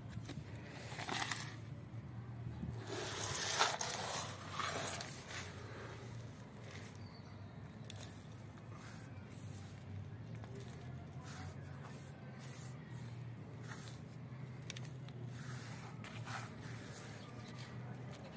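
Loose potting soil scooped by hand and dropped into a plastic plant pot around a fern offshoot's roots: a few rustling pours in the first five seconds, then scattered light scuffs and taps, over a low steady hum.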